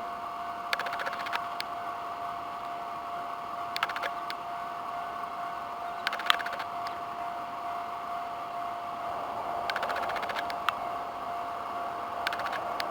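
Japanese railway level-crossing warning alarm sounding steadily as one unbroken pitched electronic tone. Short bursts of sharp clicking cut in five times, loudest about six seconds in.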